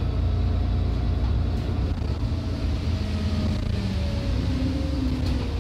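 Alexander Dennis Enviro400 double-decker bus running, heard from inside the lower deck: a steady low engine and drivetrain rumble, its note shifting in pitch about two-thirds of the way through.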